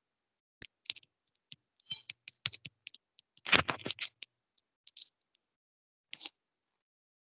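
Scattered sharp clicks and short scratchy scrapes, with one louder, longer scrape about three and a half seconds in.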